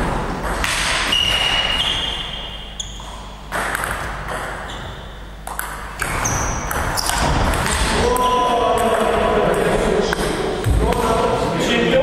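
Table tennis ball being hit back and forth in a rally: sharp, irregular clicks of the ball on rubber-faced paddles and on the table, some with a brief high ping, in a large hall with a wooden floor. From about eight seconds in, a voice carries on over the hits.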